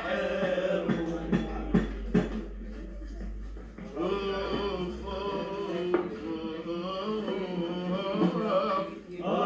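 Men singing a Lebanese zajal refrain, with a few sharp percussive hits in the first two seconds.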